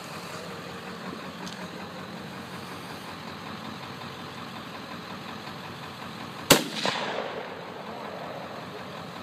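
A single rifle shot from a scoped deer rifle about six and a half seconds in, sharp and loud, trailing off in echo for about a second, over a steady low background hum.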